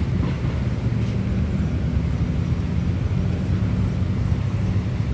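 Road traffic in a city street, a steady low rumble with a faint engine hum.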